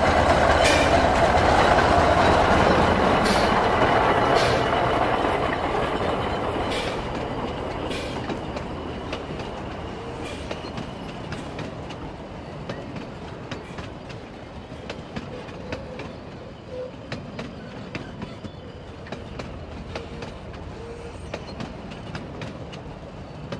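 Model steam locomotive sound: a loud steam hiss that fades away over the first several seconds, followed by quieter running with many small, irregular clicks of the wheels on the track.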